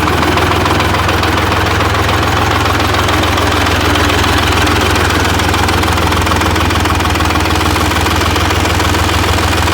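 Detroit Diesel 3-53, a three-cylinder two-stroke diesel in a 1960 Clark-Michigan loader, running loud and steady just after a cold start in freezing weather. It was pre-warmed by a plug-in heater and a heat can on the cylinder head.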